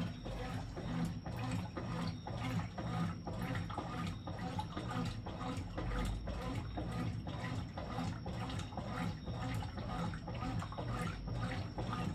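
Brastemp 11 kg BWJ11 washing machine with water running and splashing in its tub, over a steady low hum.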